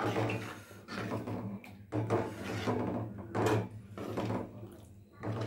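A metal ladle scraping and swishing through thick yogurt curry in a metal kadai, in repeated strokes about once a second as the curry is stirred. A steady low hum runs underneath.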